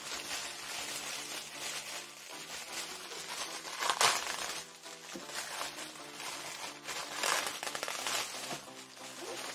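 Clear plastic wrap crinkling and rustling as it is pulled off a hard EVA case, loudest about 4 seconds in and again around 7 to 8 seconds in, over background music with held notes.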